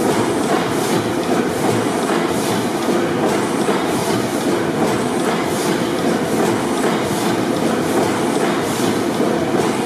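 600 HP Snow pipeline compressor engine, a slow-running four-stroke gas engine with two double-ended, double-acting cylinders, running steadily. It gives a continuous mechanical clatter with a regular clicking a few times a second.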